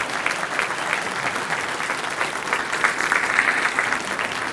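Audience applauding, a room full of people clapping, growing a little louder about three seconds in.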